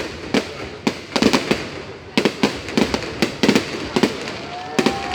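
Fireworks display: aerial shells bursting in a rapid, irregular string of loud bangs, about two or three a second, over a steady crackling haze.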